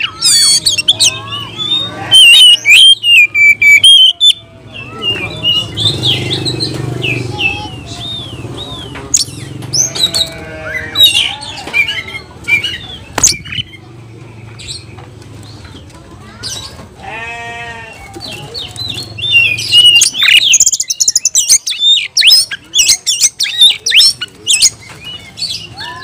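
Oriental magpie-robin (kacer) singing a loud, fast, varied song: quick whistled phrases mixed with harsh rasping calls and chatter. Louder bursts come a couple of seconds in and again near the end, and there is one buzzy nasal note partway through. This is the over-excited, aggressive song of a bird calling out rivals.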